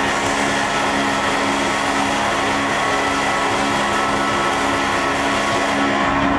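Live rock band holding a loud, dense drone: a wall of distorted noise with a few sustained low tones underneath, which cuts off abruptly near the end.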